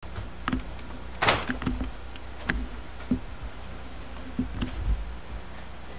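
Scattered light knocks and clicks, with a brief rustle a little over a second in, over a steady low hum.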